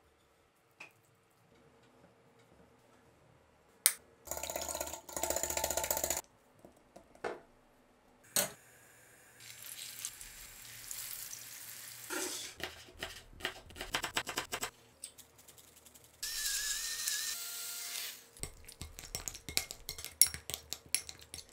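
Food-preparation sounds in quick cuts: utensil clicks and scraping, and breaded cabbage cutlets sizzling in hot oil in a frying pan about ten seconds in. Near the end comes a run of quick spoon taps and clicks.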